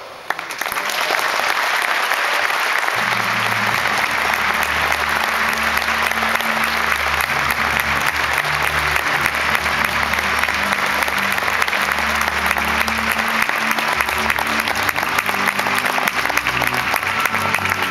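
Large banquet audience applauding loudly and steadily, with music joining under the clapping about three seconds in; the applause stops at the very end.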